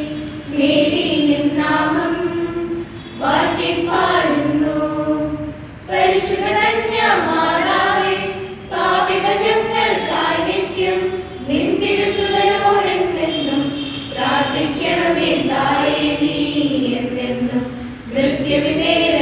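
A group of children and teenagers singing together in Malayalam, a hymn in phrases of held notes with brief pauses for breath between them.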